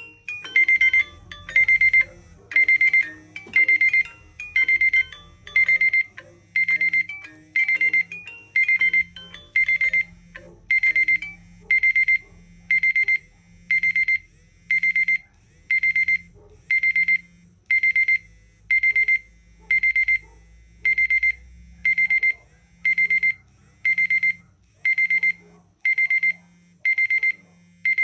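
Smartphone alarm-clock tone: a high electronic beep, each burst a rapid flutter of pulses, repeating about once a second. A fainter tune plays underneath for the first ten seconds or so.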